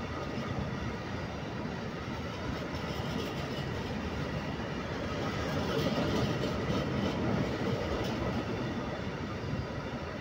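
Container freight train's wagons rolling past, a steady rumble and rattle of steel wheels on the rails with a few sharper clicks.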